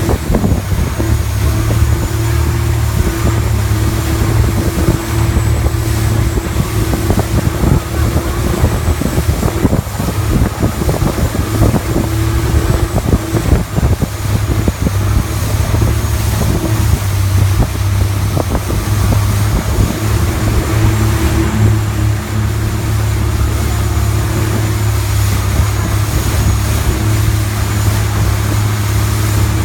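Longtail boat's engine running steadily at speed, a loud low drone, with wind rushing over the microphone.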